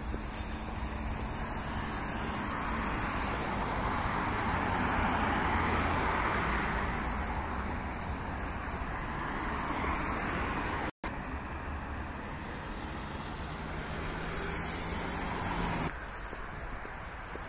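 Road traffic on a city street: a steady wash of tyre and engine noise, with one vehicle swelling past about five seconds in and then fading. The sound cuts out for an instant about eleven seconds in.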